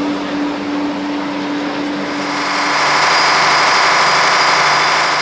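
Steady drone of a ship's engine-room machinery, growing louder about two seconds in into a whirring noise with several held tones.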